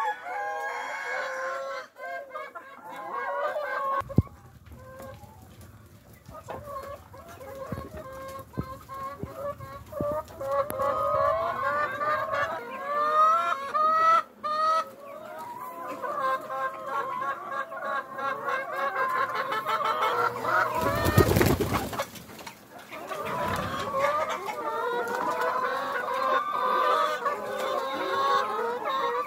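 A flock of brown laying hens clucking and squawking, many short calls overlapping without a break. A brief loud rush of noise comes about three quarters of the way through.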